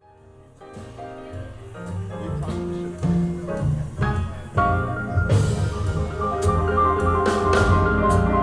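Music played through Avalon Acoustics loudspeakers and recorded in the listening room. It fades in from silence, gets steadily louder, and has sharp hits from about halfway.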